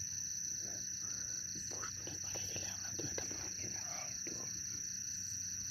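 Night insect chorus, crickets trilling: a steady high whine with a fast, even pulsing chirr just below it, continuous throughout.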